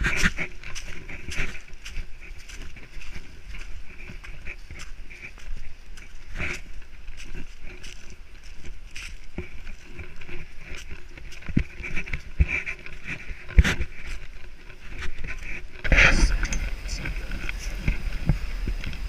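Footsteps on dry leaves and dirt: irregular scuffs and rustles from a hiker climbing a bare ski trail. About sixteen seconds in, the sound switches to wind buffeting the microphone.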